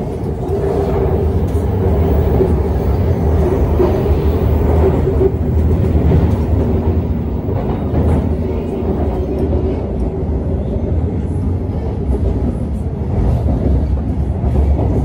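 Shanghai Metro Line 3 train running at speed on its elevated track, heard from inside the carriage: a steady low rumble of the running gear with a steady whine over it.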